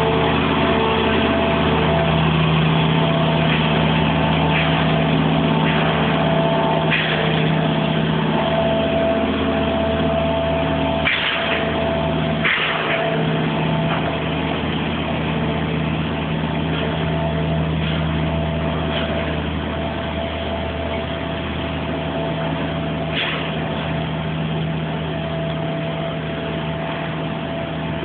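Heavy vehicle engine running steadily, with a few short hisses, two of them close together about halfway through.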